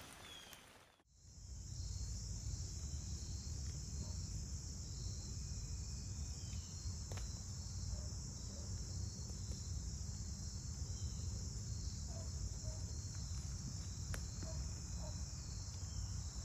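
Steady insect chorus, a continuous high trill with a faint regular pulse, starting about a second in, over a low steady background rumble. A few faint bird chirps come through it.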